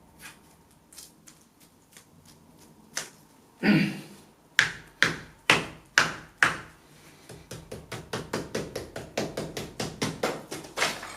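Hand tool striking a wall while prying nailed-in wood and conduit out of plaster: a few faint clicks, then a heavy knock, five sharp blows about two a second, and then a run of quicker, lighter taps about four a second.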